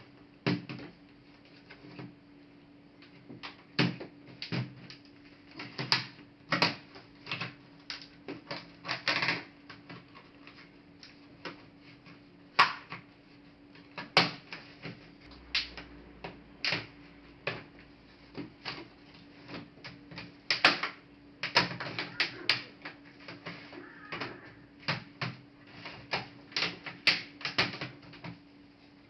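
Irregular clicks, taps and light knocks of a laptop's plastic and metal parts being handled and pried during disassembly, some in quick clusters, over a steady low hum.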